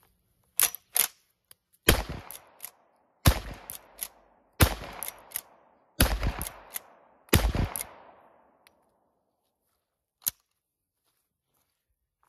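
Replica Winchester 1866 lever-action carbine fired five times in steady succession, about one shot every second and a half, each shot echoing away. Sharp clacks of the lever being worked come before the first shot and between the shots.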